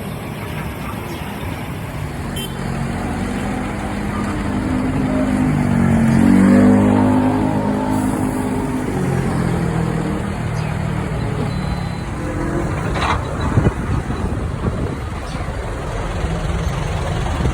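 Motor vehicle engines running steadily. One vehicle grows louder and passes about six to seven seconds in, its engine pitch dropping as it goes by. A couple of sharp knocks come near the thirteen-second mark.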